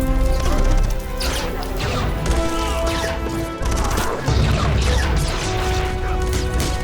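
Music with held notes under a run of crashing, smashing impacts and a heavy low rumble, like action-scene destruction.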